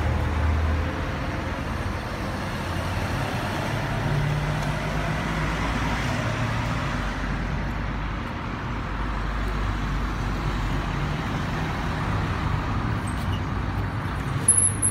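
Continuous road traffic noise, with the low hum of vehicle engines rising and fading as they pass.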